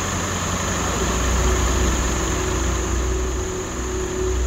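Ambulance engine idling with a steady low rumble, a thin steady high-pitched whine running above it.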